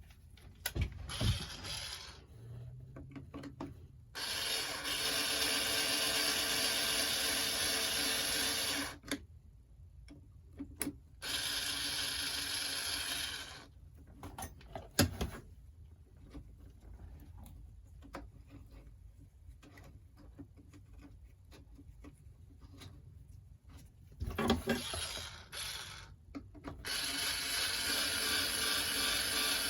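Small power-tool motor running steadily in three runs of a few seconds each, with clicks and knocks of handling in between and a sharp click about fifteen seconds in.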